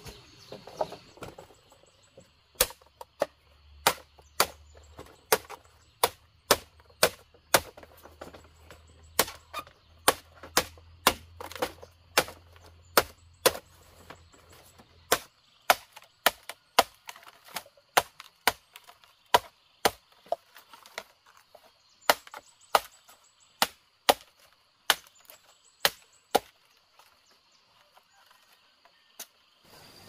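Bamboo being chopped and split with a blade: repeated sharp chopping strikes, about one or two a second in an uneven rhythm, with a few short pauses.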